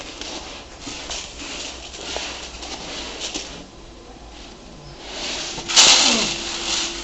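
Chickpea colour sorter machinery running: a hiss with a crackle of small ticks and a steady hum, and a loud hissing burst with a falling tone near the end.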